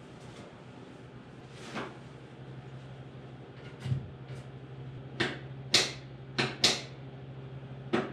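Buddy portable propane heater being set down with a thump on a wooden floor, then several sharp clicks from about five seconds in, typical of its push-button piezo igniter being pressed to light the pilot. A low steady hum runs underneath.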